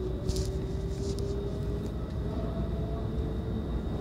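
Inside the cabin of an SMRT R151 electric metro train running along the line: a steady low rumble from the wheels and track, with a faint traction-motor whine rising slowly in pitch as the train picks up speed.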